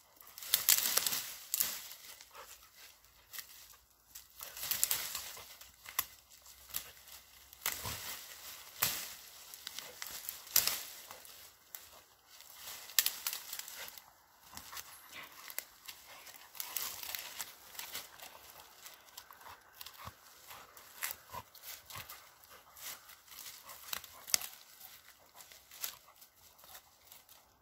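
A dog pulling and gnawing at branches in a pile of brush and ivy: irregular rustling, crackling and snapping of twigs and dry leaves.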